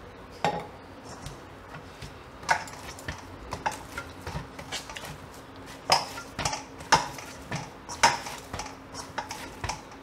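Dough being kneaded by hand in a stainless steel bowl: irregular sharp knocks and clinks of the steel bowl as the dough is pressed and turned, about one every half second to second, loudest just past the middle.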